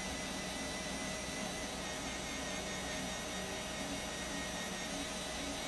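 A handheld 3D pen's small filament-feed motor running steadily as it pushes out melted plastic, over an even hiss.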